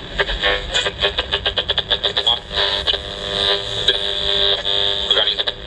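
Repaired Steepletone retro-style radio playing a medium-wave broadcast through its small speaker as it is tuned: choppy for the first couple of seconds, then a steadier station sound.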